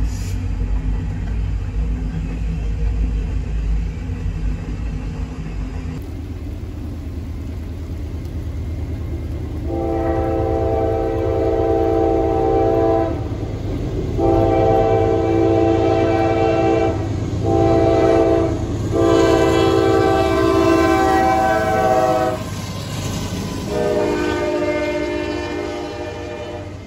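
A freight train rumbling past, then a Norfolk Southern diesel locomotive's multi-note air horn sounding the grade-crossing signal: two long blasts, a short one and a long one, then another long blast as the intermodal train reaches the crossing. The wheels and double-stack cars clatter by under the last blast.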